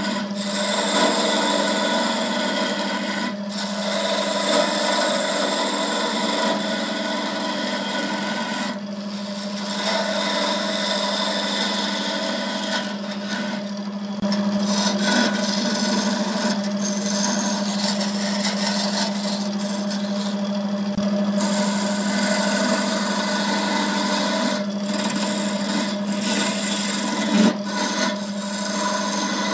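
Wood lathe running with a steady motor hum while a tool rubs and scrapes against the spinning pencil blank. The scraping breaks off briefly several times as the tool is lifted, and the hum carries on.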